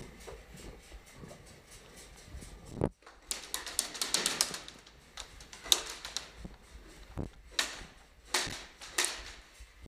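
A quick run of sharp clicks lasting about a second and a half, starting about three seconds in, then single sharp knocks every half second to a second.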